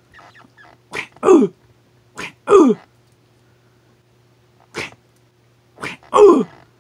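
A person's voice making loud fight sound effects for action figures: three times a short sharp burst followed by a longer cry that falls steeply in pitch, and one lone sharp burst in between.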